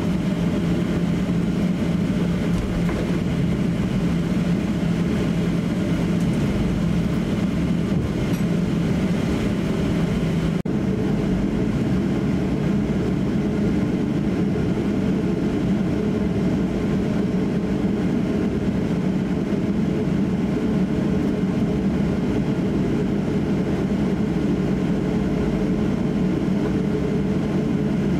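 Boeing 737-800's CFM56 turbofan engines and the rumble of its wheels on the runway, heard from inside the cabin as the jet turns onto the runway and accelerates on its takeoff roll. A steady, loud drone that shifts in tone about ten seconds in, with a brief click at that moment.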